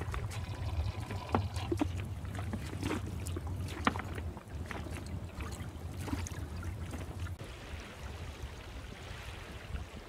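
Water slapping and splashing against the hull of a small sailboat, with short sharp splashes over a steady low rumble. About three quarters of the way through, this gives way to a soft, even hiss of shallow water lapping over sand.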